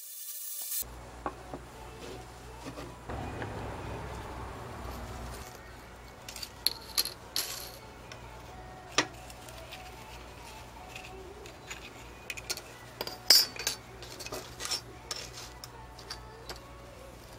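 Wood blocks, a metal strip and fibre liner strips being handled and set down on a work table: scattered clicks and light clinks, with the sharpest tap about two thirds of the way in, over a steady low hum. The tail of a rasping, filing-like noise cuts off within the first second.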